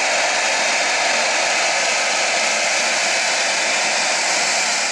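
Jet aircraft engines running at high power: a steady, loud rushing noise with faint whining tones over it.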